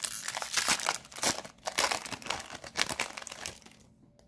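Wrapper of an Upper Deck Series Two hockey card pack crinkling and crackling as it is torn open and handled, stopping about three and a half seconds in.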